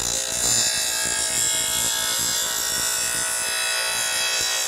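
Electric grinder running with its stone against a steel lawnmower blade, a steady hissing grind over the motor's hum as the blade's bevelled edge is sharpened.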